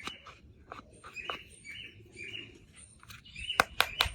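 Small birds chirping in the background with repeated short chirps, and a quick run of sharp clicks near the end.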